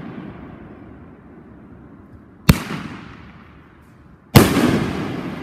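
500-gram aerial firework cake firing. The echoing tail of an earlier boom fades at the start, then a sharp bang comes about two and a half seconds in and a bigger boom near the end that rolls away in echoes.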